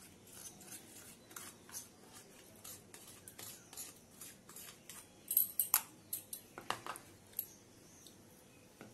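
A spoon scraping ginger-garlic paste out of a small plastic container onto chicken in a steel bowl: a run of soft scrapes and light clicks, with a cluster of sharper taps and clinks a little past the middle.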